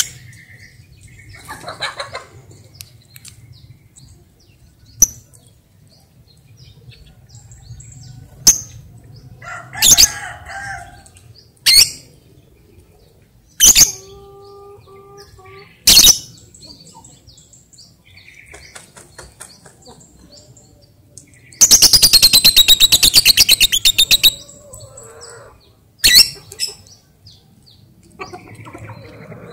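Lovebird calling: about eight short, sharp shrieks spread out, and past the middle a loud, rapid chattering trill lasting about three seconds, the long 'ngekek' song.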